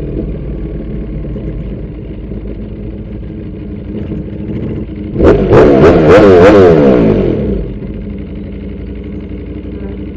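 Ducati Panigale V4 R's V4 engine running at low speed while riding slowly. About five seconds in, a much louder engine sound swells for about two seconds, its pitch wavering up and down.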